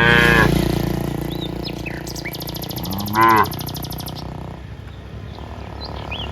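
Cattle lowing: two short moos, one right at the start and one about three seconds in that rises and falls in pitch. Birds chirp in the background, with a rapid high trill in the middle.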